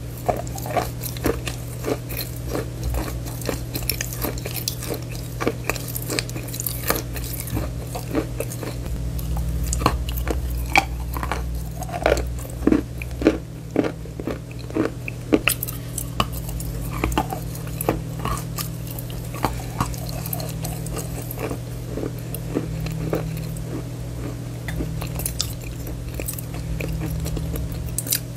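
Close-miked chewing and biting of bar chalk: many short, sharp crunches over a steady low hum.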